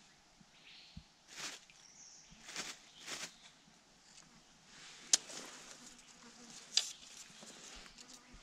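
Dry bamboo debris and leaf litter rustling in three short swishes, then two sharp snaps about two seconds apart.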